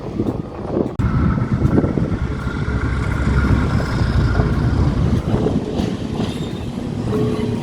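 Diesel locomotive running with a heavy, steady rumble that gets suddenly louder about a second in, with a faint high whine over it.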